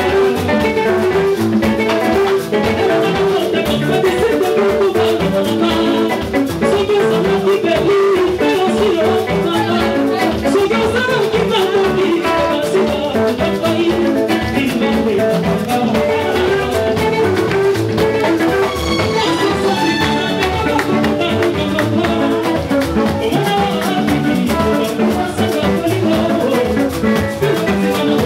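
A live Congolese dance band playing, with electric guitars and a drum kit.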